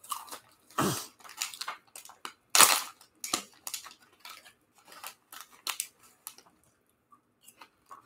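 Plastic snack wrappers crinkling and rustling in irregular bursts as they are handled, loudest about two and a half seconds in, with a short lull near the end.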